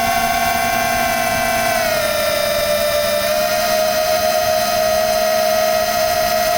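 FPV drone's electric motors and propellers whining steadily close to the on-board camera. The pitch drops slightly about two seconds in and climbs a little again a second later as the throttle changes.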